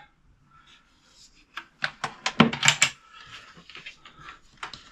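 Sharp clicks and knocks of cupboard doors and catches being handled, a quick cluster of them about one and a half to three seconds in and two more near the end.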